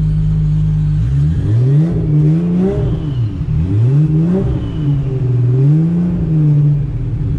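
A car engine idling steadily, then revved up and down several times from about a second in, its pitch rising and falling with each blip, before it settles back to idle near the end.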